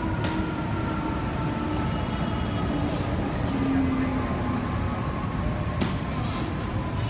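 Steady rumble of city street traffic, with faint whining tones that slowly fall in pitch and a couple of sharp clicks.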